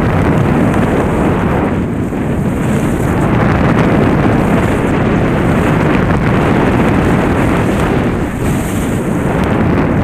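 Loud, steady wind buffeting a helmet-mounted camera's microphone during a downhill ski run, mixed with skis scraping over packed snow.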